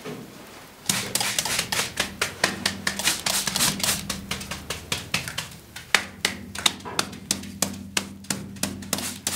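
Rapid, sharp taps, several a second, starting about a second in: paper laid over a carved stone relief being struck by hand to press it into the carving for a rubbing.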